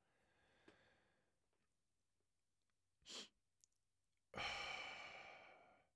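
A man breathes in briefly about three seconds in, then lets out a long sigh that fades away.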